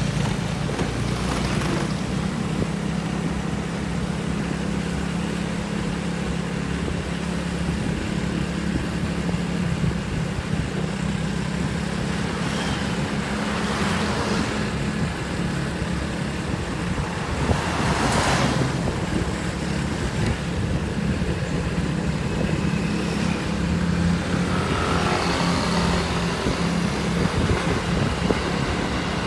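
Road traffic heard while moving along a city street: a steady low engine hum under noise from wind and tyres, with vehicles swelling past and fading twice, the second louder.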